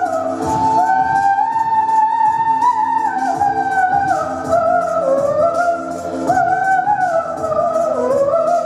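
A girl singing a slow, gliding melody into a handheld microphone over an instrumental accompaniment with a steady beat.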